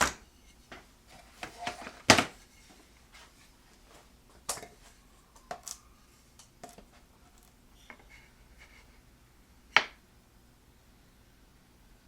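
Scattered knocks and clicks of workpieces and tools being handled, the sharpest about two seconds in and again near ten seconds, with a few softer taps between.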